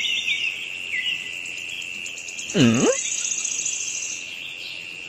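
Countryside ambience of a steady high insect trill with scattered bird chirps. About halfway through, a short low swooping tone dips and rises in pitch.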